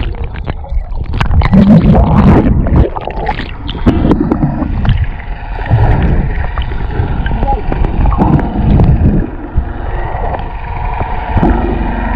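Water splashing and gurgling alongside a boat, over uneven low rumbling on the microphone.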